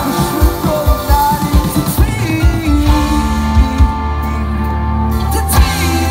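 Live pop-rock band with a male singer, drums, electric guitar and keyboards, heard from within the audience. Busy drumming under the vocal gives way about halfway through to held chords with sparse drums, then a hard hit near the end brings the beat back.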